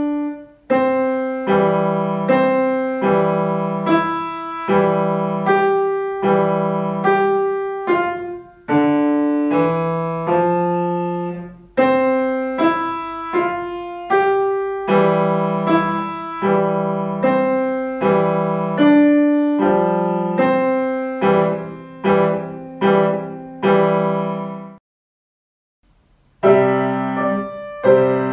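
Grand piano being played: a moderately slow melody over repeated low chords, each note struck and then dying away. The playing stops about 25 s in, and after a second or so of silence a different piano piece begins.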